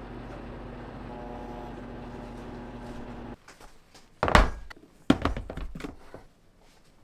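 A steady machine hum that cuts off suddenly a little over three seconds in, followed by a loud thunk about a second later and a quick cluster of knocks and clatter.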